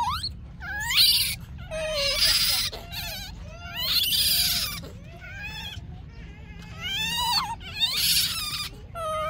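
Baby monkey screaming: repeated high-pitched squeals that rise and fall, broken by several loud, harsh screams.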